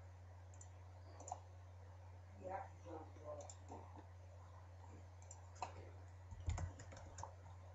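Faint computer mouse clicks: single clicks scattered through, then a quick run of them near the end, over a steady low hum.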